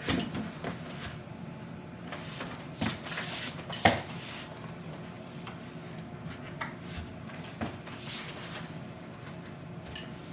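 Scattered clicks and knocks of plastic and metal playpen parts being handled and fitted together, the sharpest one about four seconds in.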